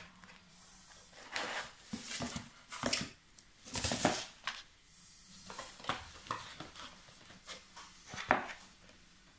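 Empty cardboard cereal box rustling and scraping across a tiled floor as a cat wriggles inside it and shoves it along, in irregular scuffling bursts, busiest in the first half. A single sharp knock comes near the end.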